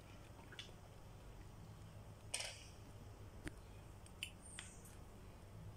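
A quiet room with a steady low hum and a few faint small clicks, plus one short rustle about two and a half seconds in.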